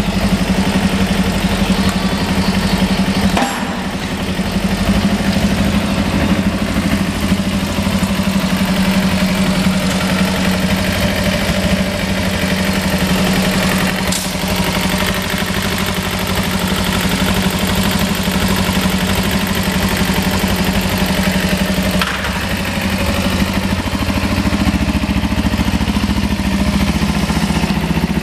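2009 Kawasaki Ninja 250R (EX250) parallel-twin engine idling steadily.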